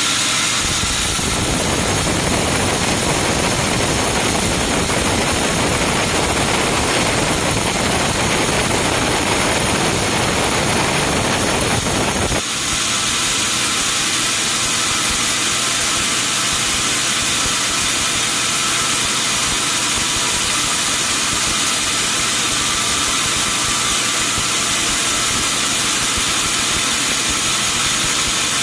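Sawmill machinery running loudly and steadily. About twelve seconds in the sound changes abruptly: the deep rumble drops away and a thinner, hissing machine noise carries on.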